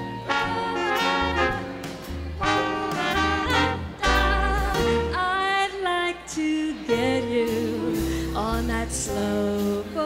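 Live swing jazz band playing: a horn section of saxophones and brass over upright bass, drums and piano.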